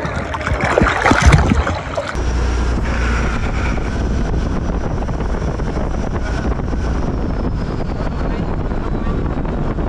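Sea water splashing and sloshing around a swimmer at the surface. About two seconds in, this gives way to a steady rush of wind on the microphone over the deep drone of a speedboat's motor under way.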